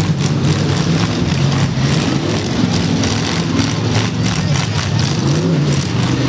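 Full-size demolition derby cars' engines running: a loud, low engine drone whose pitch shifts up and down, with rapid crackles and clatter over it.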